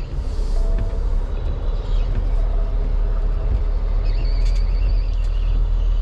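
Semi truck's diesel engine running with a steady low rumble.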